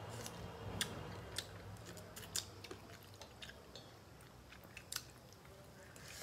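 Faint sounds of eating by hand: chewing and mouth smacks, with scattered small clicks from fingers working food on metal plates.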